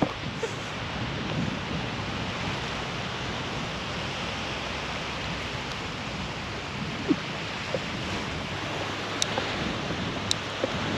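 Ocean surf washing steadily onto the beach, with wind on the microphone. A few faint sharp clicks come near the end.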